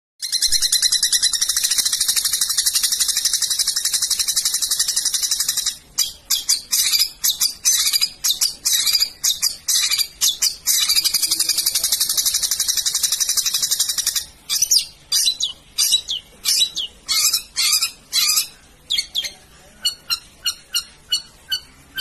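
Long-tailed shrike (cendet) song: a fast, high, rattling trill for about five seconds, then a run of separate sharp notes, a second long trill about ten seconds in, and more sharp notes, a few each second, after it.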